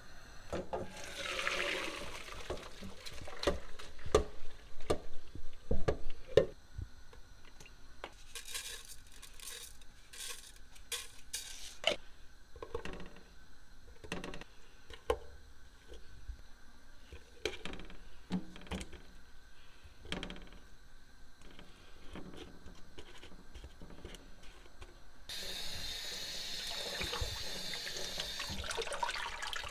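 A brief gush of water about a second in, then scattered knocks and clinks of a spoon and pot while potato slices are laid in the pan. Near the end a kitchen tap runs steadily onto parboiled rice and lentils in a steel colander.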